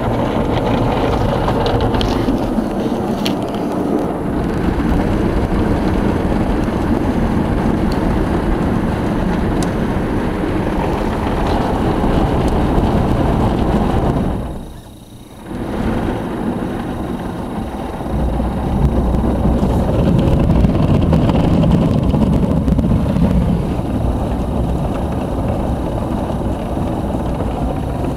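Belanger Freestyler soft-cloth automatic car wash heard from inside the car: spinning cloth and foam brushes scrub and slap against the body and windows over spraying water and machinery. The noise drops away briefly about halfway through, then comes back with a deeper rumble.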